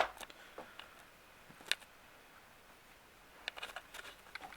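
A few light clicks: a single one about a second and a half in, then a short run of quick clicks and taps near the end.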